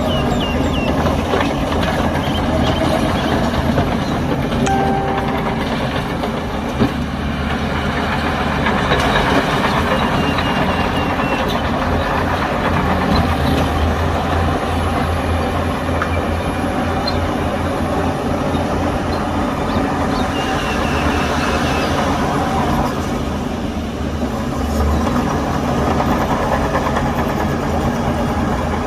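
Heavy diesel earth-moving machinery running steadily under load, with a continuous low engine note and metallic clatter.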